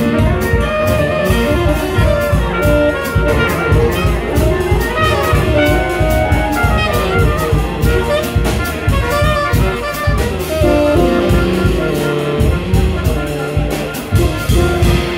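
Live jazz combo playing: saxophones and trumpet carry the melodic lines over bass and drums.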